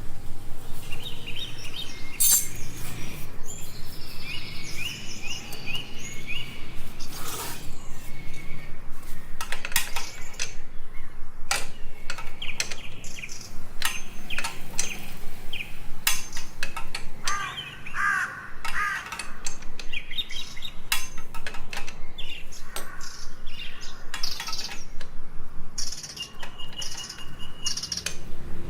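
Small birds chirping repeatedly, with many sharp clicks or taps in between.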